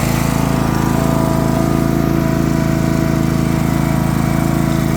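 Craftsman LT3000 riding lawn mower's engine running steadily at a constant speed, without misfiring.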